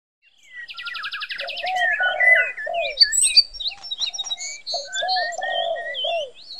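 Several birds singing and calling together: quick chirps and trills high up, over a repeated run of lower arching notes. The chorus fades in from silence over the first second or two.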